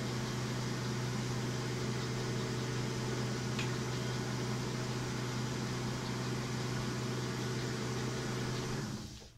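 Small metal lathe running with its chuck spinning, a steady motor hum with no cutting. It is switched off about nine seconds in and the hum dies away quickly as the spindle stops.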